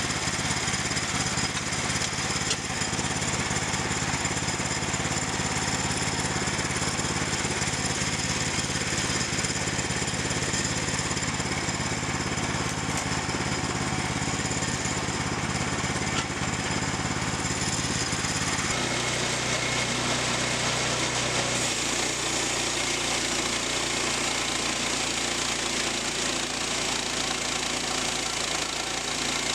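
Sawmill engine running steadily. Its tone changes abruptly about 19 seconds in and again a few seconds later.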